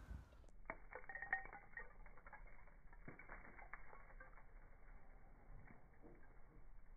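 Faint, scattered taps and scrapes of a hand tool digging into a dirt bank, with loose dirt falling.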